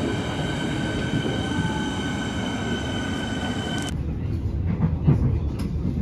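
Melbourne Metro electric suburban train at a station platform, running with a steady high-pitched whine over rumble. About four seconds in the whine cuts off and gives way to the rumble of riding inside the moving carriage, with scattered clicks.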